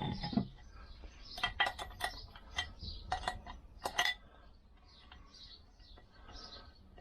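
Spanner and double nuts clinking against a new wheel stud on a Lambretta rear hub while a nut is adjusted along the stud: a run of sharp metal clinks, densest between about one and a half and four seconds in.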